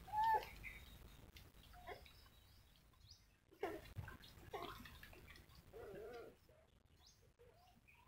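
Young nursing puppies giving short squeaky whimpers as they jostle at their mother's belly: one sharp squeak right at the start, a cluster about four seconds in, and a longer wavering whine around six seconds.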